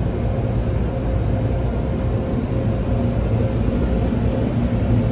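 Automatic tunnel car wash machinery running, heard from inside the car: a steady low rumble with a faint constant hum over it.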